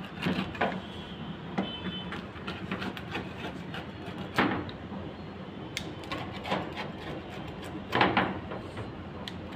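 A pizza cutter slicing through a baked pizza's crust on a wooden serving board, with scattered clicks and scrapes and a few louder knocks of the blade on the wood, the clearest about four and eight seconds in.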